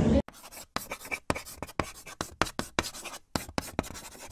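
Rapid, irregular short scratching strokes, about four a second, with brief quiet gaps between them. They begin right after the continuous ride noise cuts off abruptly.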